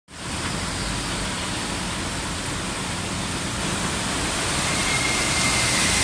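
Steady rush of water on a flooded street as a bus and motorbikes wade through the floodwater. The noise swells a little after about four seconds, and a faint thin high tone sounds near the end.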